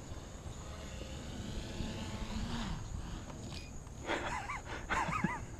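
Faint, steady whir of a quadcopter's four brushless motors and 10x4.5 propellers in flight, with slight shifts in pitch. Short warbling chirps come in near the end.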